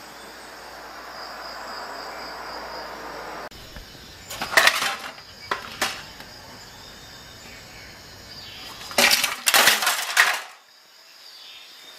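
Dismantled Canon Pixma MG3550 printer parts clattering and knocking as they are handled and set down, in two bursts: a few sharp knocks about four to six seconds in, then a denser, louder clatter near the end. A steady hiss before the first knocks stops abruptly.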